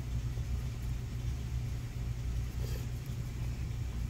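Steady low hum of running shop machinery, with a faint click nearly three seconds in.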